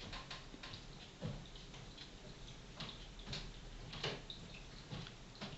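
Quiet, irregular clicks and wet pops of lips and breath puffing on a tobacco pipe's stem.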